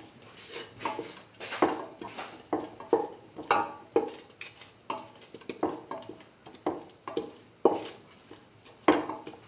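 A metal spoon stirring and scraping a thick beetroot masala in a stainless steel pressure-cooker pan, knocking the pan about twice a second so that each stroke rings briefly.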